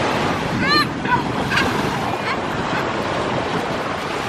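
Ocean surf washing steadily, with wind buffeting the microphone. Just under a second in comes one short high call, arching up and down in pitch, followed by a few fainter short high calls.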